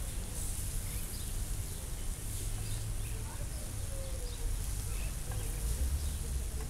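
Eggs, broccoli, asparagus and sausage frying in a skillet and being stirred and scraped with a nylon spatula: a soft sizzle with scraping strokes, over a low steady hum. Birds chirp faintly in the background.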